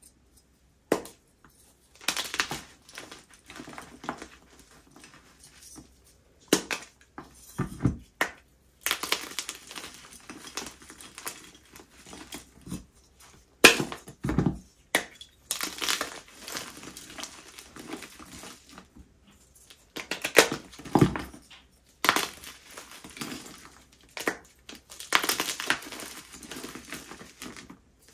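Dyed gym chalk being crushed, with irregular bouts of crisp crunching and crumbling broken by short pauses. The sharpest crack comes about halfway through.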